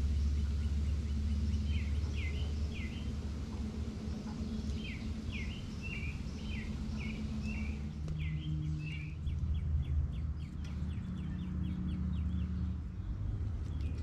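Small songbirds chirping in short runs of quick, falling notes, with a fast series of sharp chips around the middle, over a steady low rumble.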